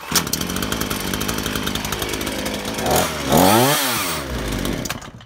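Warm Titan petrol chainsaw's two-stroke engine starting on a pull of the starter cord without choke, then running, with a brief sharp change in engine pitch and loudness about three seconds in. The sound falls away near the end.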